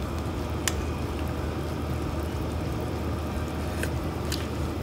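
Crab and corn soup broth at a rolling boil in a pot, a steady bubbling under a steady low hum, with a few light clicks about a second in and near the end.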